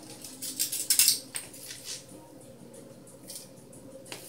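A spoon scooping dry rolled oats out of a cardboard oats canister: a scratchy, rustling scrape loudest about a second in, then a lighter scrape and a small click near the end.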